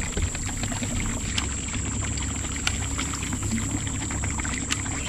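Bass boat on the water: a steady low rumble with a wash of water noise, and a few faint clicks.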